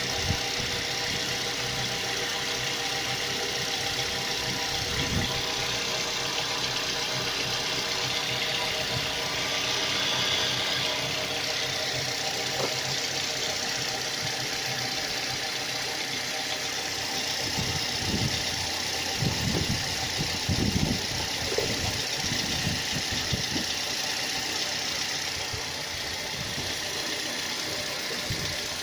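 Car engine idling under the hood, with a steady whine over the running noise: an extraneous noise of unknown cause from the engine bay. A few louder low thumps come about two-thirds of the way through.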